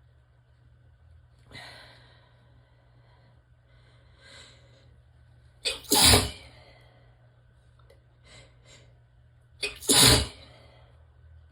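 A person sneezing twice, about four seconds apart, each sneeze preceded by a quick catching breath. Softer breaths come in the pauses between.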